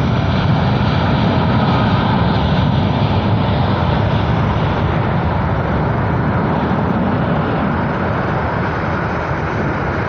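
Boeing 787-9 Dreamliner's jet engines at takeoff power: a loud, steady roar that slowly fades near the end.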